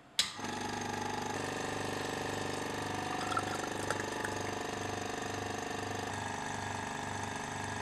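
Vacuum pump running steadily for suction filtration through a glass fritted funnel, with an even throb about twice a second; its note shifts slightly about a second in and again near the end.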